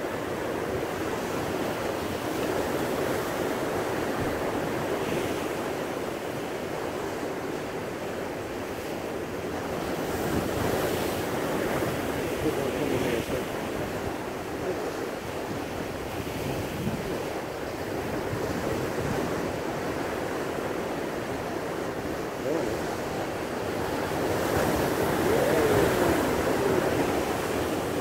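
Rough sea surf breaking and washing over rocks, a continuous rush that rises and falls with each wave and is loudest near the end.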